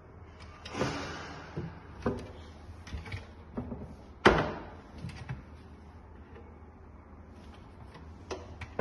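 Kitchen wall-cupboard doors opened and shut by hand: a few light clicks and knocks, with one sharp knock a little over four seconds in.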